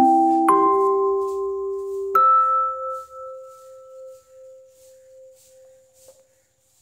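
Background music: slow, single struck notes of a bell-like melodic instrument. A note comes about half a second in and another about two seconds in, and that last note rings on and fades away over about four seconds.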